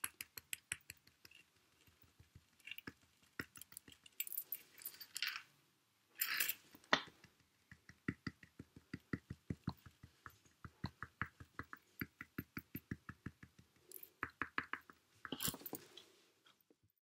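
Cotton swab dabbing tempera paint dots onto paper: a fast run of soft taps, about three or four a second, broken by a few longer rubbing sounds.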